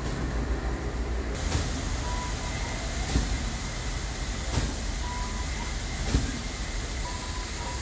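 Ol49 steam locomotive standing with steam hissing around its wheels over a low steady rumble, the hiss growing louder about a second in. A sharp knock comes about every second and a half.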